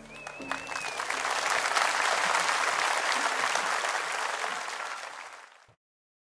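Large audience applauding, with a wavering whistle in the first second. The clapping builds, holds steady, then cuts off suddenly near the end.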